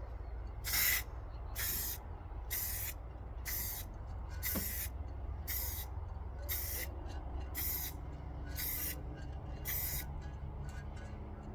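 Aerosol spray-paint can spraying in short hissing bursts, about ten of them at roughly one a second, as a coat of paint is laid on.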